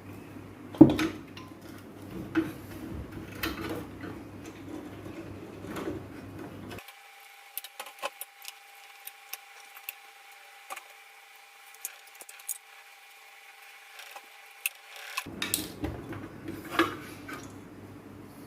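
Scattered clicks and knocks of hand tools and metal parts being handled, with one louder knock about a second in. A faint steady tone runs through the middle part.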